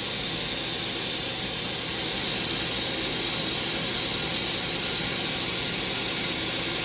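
Star SR32J CNC Swiss-type lathe running with its sub spindle turning: a steady, even hiss-like machine noise.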